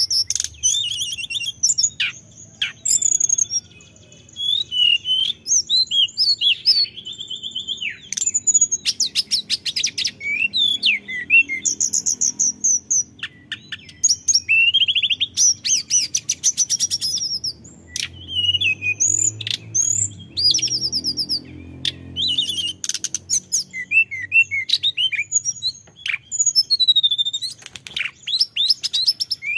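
Male hill blue flycatcher singing continuously: a long run of varied clear whistled phrases and sliding notes, broken up by fast rattling trills, with hardly a pause.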